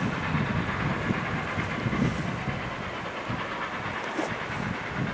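Reading & Northern T1 No. 2102, a 4-8-4 steam locomotive, working as it approaches: a pulsing low exhaust beat over a steady hiss.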